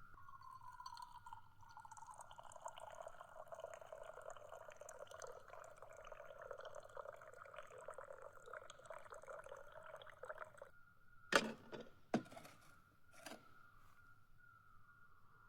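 Hot tea pouring in a steady stream for about ten seconds, its pitch sliding lower at first, then stopping; two sharp knocks follow, like a pot or cup being set down.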